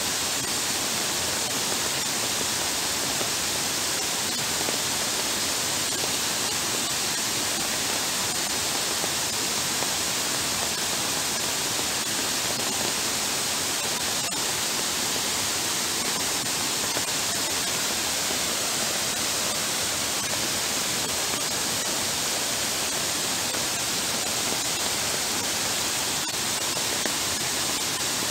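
Heavy downpour and shallow floodwater running across a paved path, a steady, even hiss that never lets up.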